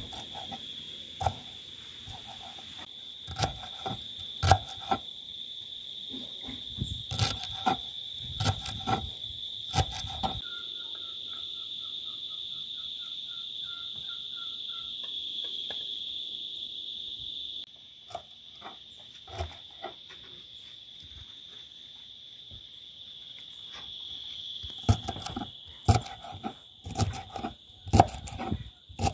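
Kitchen knife chopping callaloo stems on a wooden cutting board: bursts of sharp knocks, with a quieter stretch in the middle. Under it, a steady high-pitched insect drone.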